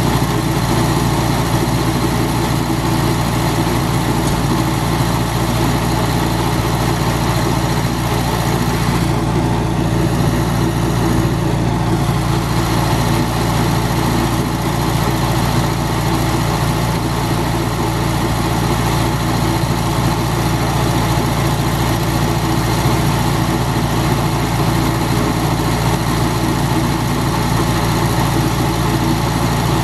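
Air-cooled engine of a Vermeer 630 stump grinder running steadily at an even speed.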